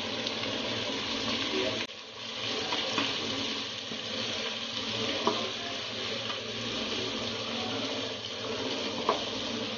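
Sliced onions sizzling as they fry in hot ghee and oil in a non-stick kadai, with a metal slotted spoon now and then scraping and ticking against the pan as they are stirred. The sizzle dips briefly about two seconds in.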